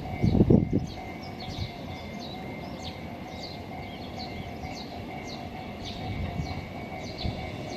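Small birds chirping over and over, with the faint steady hum of an electric train approaching in the distance. A few low thumps come in the first second.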